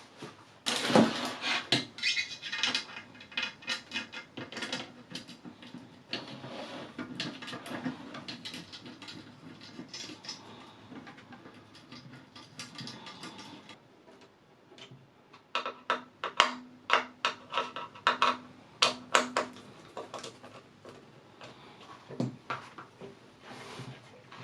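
Irregular clicks, knocks and light metallic clinks of hard parts being handled and fitted together by hand. There are two busy spells, about a second in and again from about 15 to 20 seconds in.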